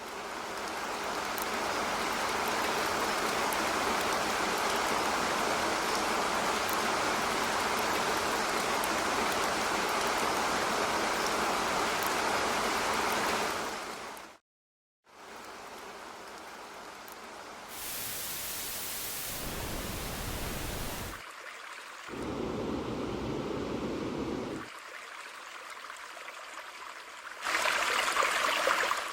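A string of separate rushing, hiss-like sound effects: one steady rush lasting about fourteen seconds, then, after a brief silence, several shorter rushing sounds of different pitch, each starting and stopping abruptly.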